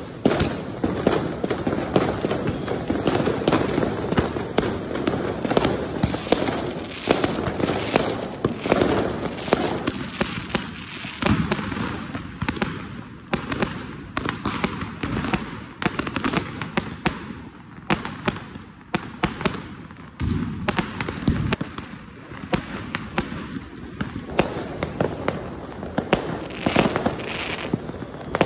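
Fireworks going off continuously, a dense run of sharp bangs and crackles that never lets up.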